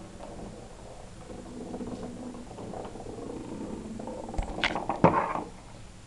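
Handling noise: a few sharp clicks and a short, loud, scratchy rustle about five seconds in, as a hand reaches onto the wooden track and the camera is moved about. Before that there is only a faint, uneven low background sound.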